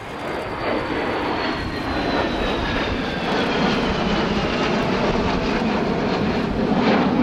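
Three Panavia Tornados' twin Turbo-Union RB199 turbofans in a close formation flypast: a jet roar that grows louder throughout, with a high whine that falls steadily in pitch as the jets pass.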